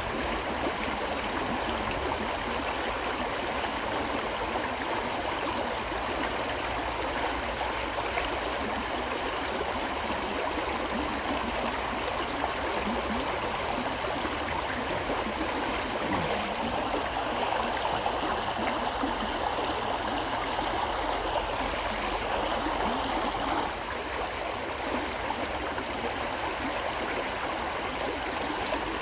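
River water flowing steadily: a continuous, even rush of moving water.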